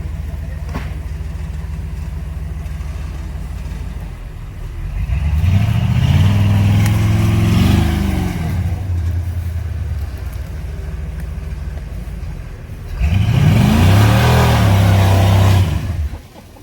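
Off-road vehicle's engine running steadily, then revved hard twice, each time for a few seconds with the pitch climbing and falling; the second rev cuts off near the end.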